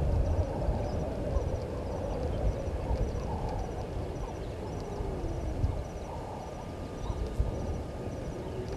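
Outdoor bush ambience: an uneven low rumble with a faint high chirp repeating at an even pace.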